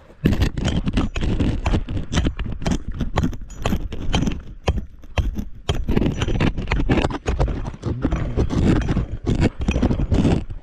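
Cordless Milwaukee power hammer with a chisel bit hammering at solid cave rock, rattling in rapid loud blows in bursts with brief pauses, chipping the rock away to widen a tight passage.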